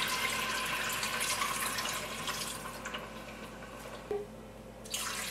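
Water poured from a measuring cup into an Instant Pot's stainless steel inner pot, the stream thinning out and stopping about three seconds in. A second pour starts near the end.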